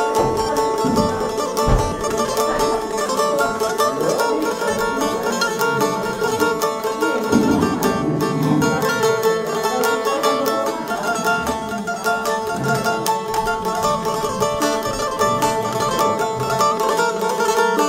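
Qifteli, the two-stringed Albanian long-necked lute, played solo with fast tremolo picking: a melody over a steady held note.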